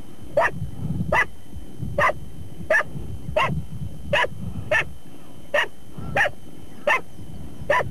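A dog barking at a feral pig it is holding at bay: about eleven sharp barks at an even pace, roughly one every two-thirds of a second, over a low rumbling.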